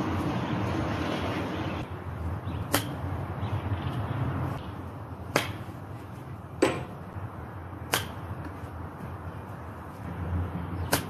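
A 60-degree wedge clipping golf balls off short grass: four sharp clicks a couple of seconds apart, with a duller knock between the second and third, over steady background noise.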